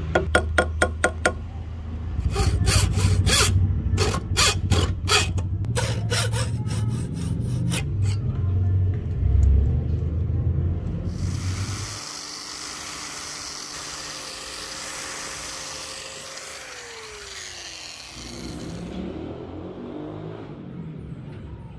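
Hand woodworking on an axe handle: a run of sharp, irregular strikes on wood, then a long stretch of steady scraping noise like rasping, sawing or sanding that stops a few seconds before the end.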